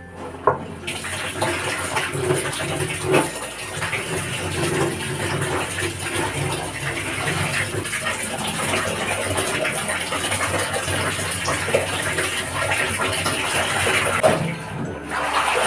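Clothes being hand-washed in a basin of water: wet fabric sloshing, splashing and being scrubbed, with a few sharper splashes.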